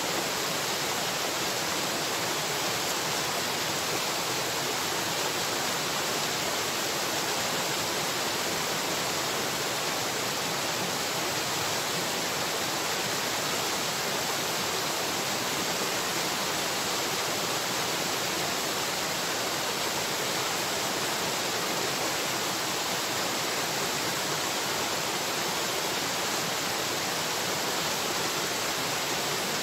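Steady, unchanging rushing noise with no distinct events in it.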